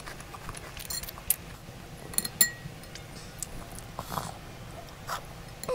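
Close-up eating sounds: chewing Maltesers and slurping milk off a metal spoon, with a few sharp clicks, such as the spoon against the glass bowl.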